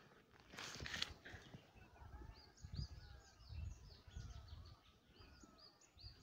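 Faint birds chirping in the background, a run of short high chirps repeating several times a second, with a brief burst of noise about a second in.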